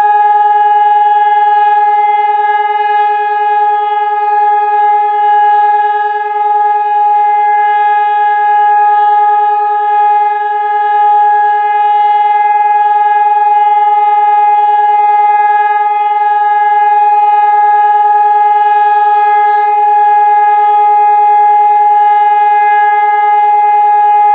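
Hörmann ECN 2400 electronic siren sounding one loud, steady tone that holds its pitch without rising or falling. This is the continuous-tone "Entwarnung" (all-clear) signal of the German civil-protection siren test.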